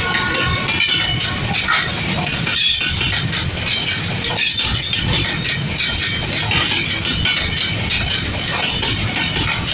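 Freight wagons carrying shipping containers rolling past at close range: a steady, loud rumble of steel wheels on rail, with repeated clicks and clatter as the wheels run over the track.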